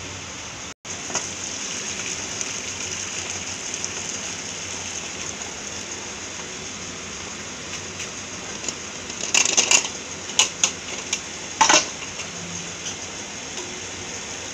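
Boiled noodles and their hot water being drained through a steel colander, a steady splashing hiss, followed by several sharp clanks of the steel pot and colander.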